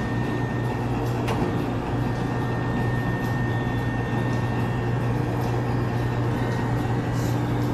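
Steady low hum of self-serve frozen yogurt machines' refrigeration, with a faint, thin high whine over it and no change in level.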